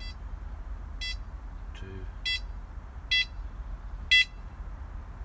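ProLogic SMX bite alarm beeping five times, about a second apart, each beep louder than the last, as its button steps it through its five volume settings.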